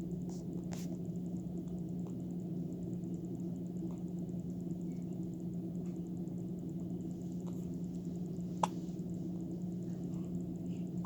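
Baby hiccuping: a few short, sharp hiccups at uneven intervals, the clearest about eight and a half seconds in, over a steady background hum.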